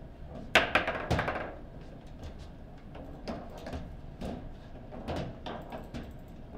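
Knocks and clacks from a foosball table being played, with the ball struck by the rod figures and hitting the table walls. A quick loud cluster of knocks comes about half a second in, then single knocks follow every half second or so.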